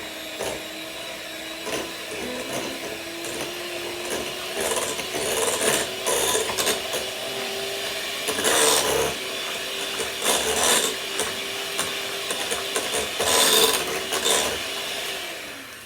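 Electric mixer beating cake batter at medium speed: a steady motor whine with the beaters rattling and scraping in the bowl several times. The whine drops in pitch and cuts out just before the end.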